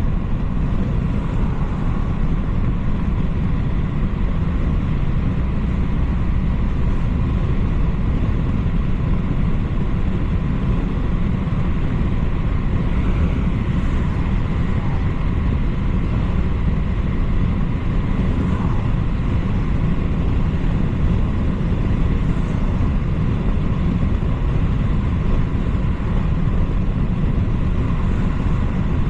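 BMW 330i (G20) with its 2.0-litre turbocharged four-cylinder driving at a steady pace: a constant low rumble of engine and road noise, with no revving or gear changes standing out.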